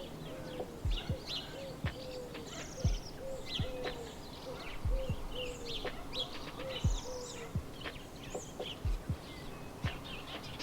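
Small birds chirping and twittering in quick, varied calls, over a repeated short low note and a soft low thump about once a second.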